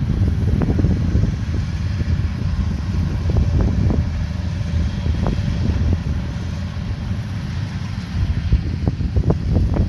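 Combine harvester engine running steadily with a low rumble. Occasional short knocks or clicks sound over it, several close together near the end.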